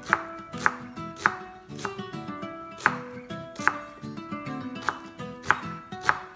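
Chef's knife chopping an onion on a wooden cutting board: about eight sharp knocks at uneven intervals, over background music.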